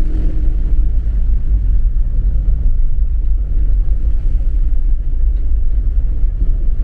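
Steady low rumble of a car driving on a wet, flooded road, heard from inside the cabin.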